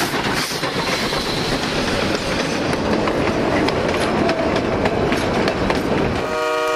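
Steam train running past at speed: a loud, steady rush of noise with sharp wheel-on-rail clicks. Near the end a chime whistle sounds a steady chord of several notes.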